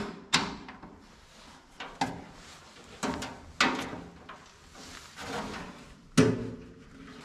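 A series of sharp knocks and clunks, about six in all, from things being handled and set down, some with a short ringing after.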